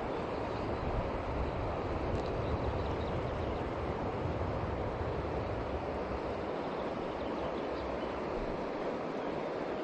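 Steady rush of river water flowing close by, with a low rumble underneath that eases off about two-thirds of the way through.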